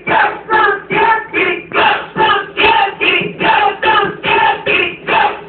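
A group of voices singing in a steady, strongly rhythmic beat, about two syllables a second.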